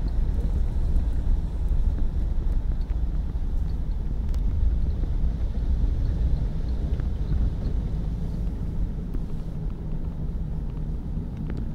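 Steady low rumble of a car driving slowly, engine and tyre noise heard from inside the cabin.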